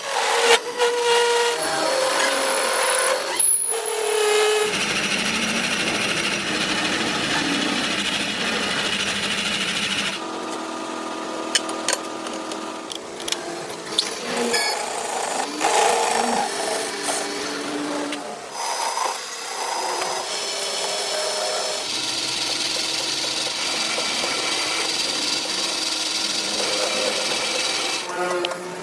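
Power tools working metal, a continuous mechanical whirring and grinding with some steady whining tones. The sound changes character abruptly several times, as different machining steps follow one another.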